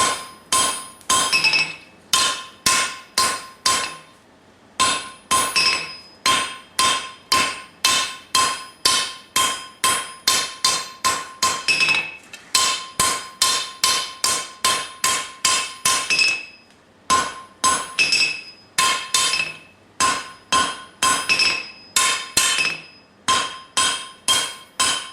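Hand hammer striking hot leaf-spring steel on an anvil, about two blows a second, each blow ringing. The blows come in runs with short pauses, as the bar is drawn down and its edges cleaned up to a 1.25-inch width for a vise spring.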